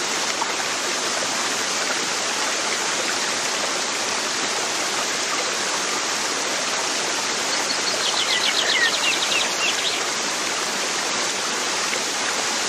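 Steady rushing sound of running water, like a stream. About eight seconds in, a bird gives a quick trill of short repeated high notes for about a second and a half.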